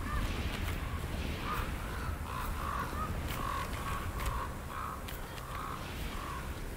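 A flock of crows cawing repeatedly, about two calls a second, over a low steady rumble.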